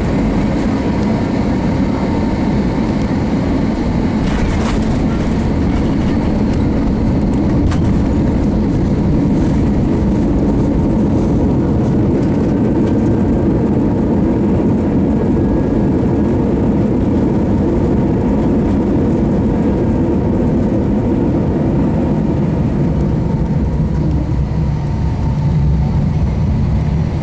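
Cabin noise of an Airbus A321 with IAE V2500 engines rolling on the ground after landing: a steady, loud low rumble of engines and wheels, with a couple of faint clicks.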